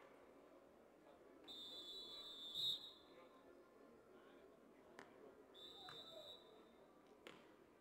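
Referee's whistle blown twice: a steady high blast of about a second and a half, then a shorter one about six seconds in, with a couple of faint sharp knocks around them. Otherwise near silence.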